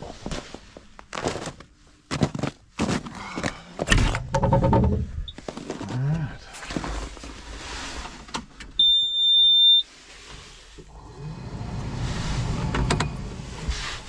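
Thumps and clatter from getting into a Bobcat excavator's cab, then about nine seconds in a single steady high electronic beep lasting about a second as the key is switched on and the diesel's glow plugs preheat before starting.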